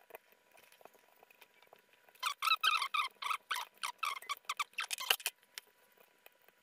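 Short, pitched squeaks in quick succession, typical of a screw squeaking as it is turned out of an FPV drone's frame with a small driver. They start about two seconds in and stop a little after five seconds.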